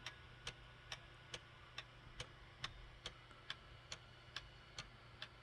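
Escapement of a circa-1870 Beha wood-plated double-fusée cuckoo clock movement ticking faintly and evenly, a little over two ticks a second. The strike train is held in warning, just before the strike releases.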